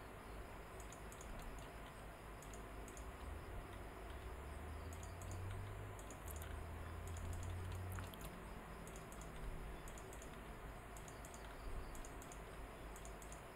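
Faint, irregular clicks of a computer keyboard and mouse: the F key tapped again and again, with mouse clicks between. A low hum comes in for a few seconds in the middle.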